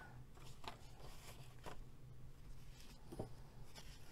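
Faint rustles and light taps of old paper leaflets being handled and laid down, a few short separate sounds, the clearest a little after three seconds in, over a low steady hum.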